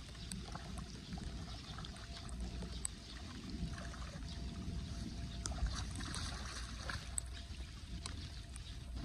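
Shallow floodwater sloshing and trickling around hands that are clearing debris from a clogged street storm drain, with scattered small splashes and clicks.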